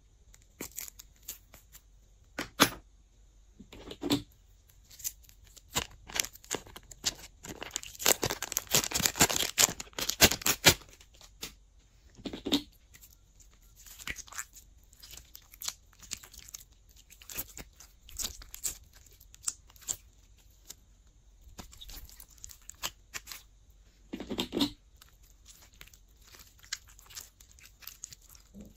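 Blue glossy slime being squished and stretched by hand, making sticky clicks and pops, with a dense run of rapid wet crackles about eight to eleven seconds in.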